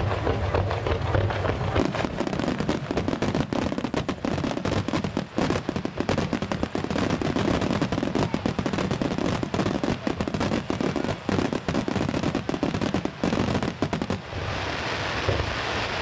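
Fireworks finale: a rapid, dense barrage of aerial shell bursts, the bangs overlapping almost without pause. Near the end the bangs give way to a steadier hiss.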